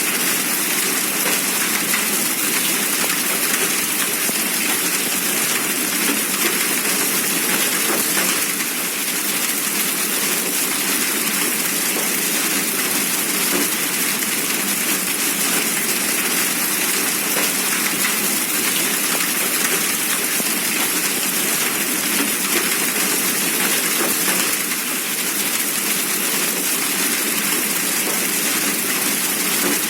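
Hail and rain pelting down steadily: a dense, even hiss made of countless small impacts.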